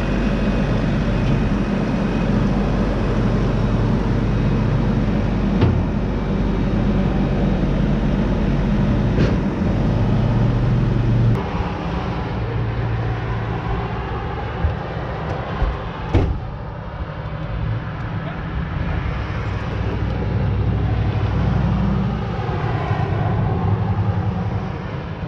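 Diesel engine running steadily, its sound changing abruptly about halfway through, with a few sharp knocks a few seconds after that.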